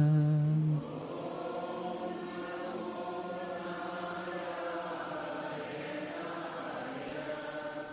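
A single lead voice holds a long chanted note that ends under a second in, followed by softer chanting from a group of voices in loose unison.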